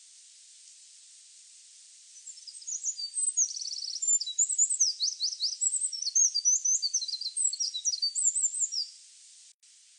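A songbird singing one long, fast, varied song of high chirps, trills and quick sliding notes, starting about two seconds in and stopping about nine seconds in, over a steady high hiss.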